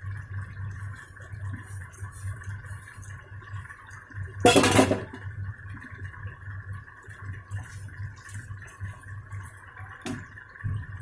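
Steady background hum with one loud clatter about four and a half seconds in, then a sharp knock near the end as a wooden spatula starts stirring chicken korma in a non-stick pan.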